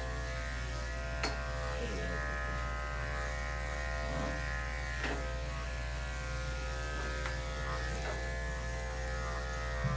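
Electric pet grooming clippers running with a steady hum while shaving fur from a cat's belly and hind leg.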